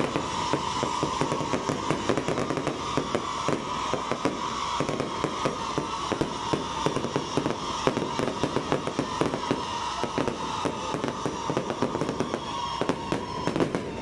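Aerial fireworks display: a dense, continuous rattle of crackling and popping from bursting shells and crackle stars.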